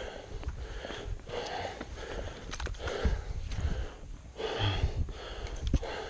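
A person panting hard and fast, a loud breath about once a second, out of breath from the exertion of climbing uphill on foot.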